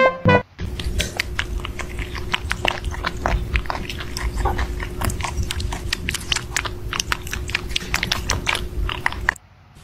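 Kittens eating noisily from a metal bowl: a rapid, uneven run of wet smacking and lapping clicks, over a steady low hum.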